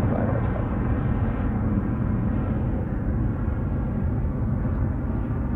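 Boeing 737 BBJ's CFM56-7B turbofan engines climbing away after takeoff: a steady low rumble that slowly fades as the jet recedes.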